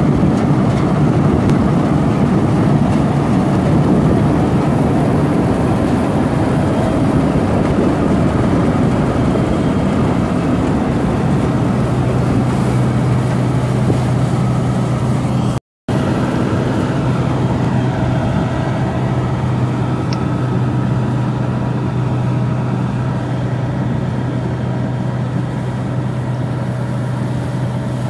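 Claas Dominator 86 combine harvester running in the field while it cuts a standing crop: a loud, steady engine and machinery noise. A low drone comes in about twelve seconds in, and the sound cuts out for a moment about halfway through.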